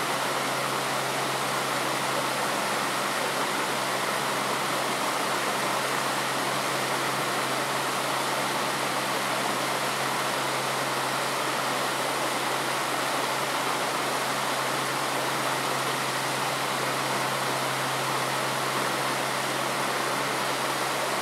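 Steady rush of flowing stream water, unchanging throughout, with a low steady hum underneath.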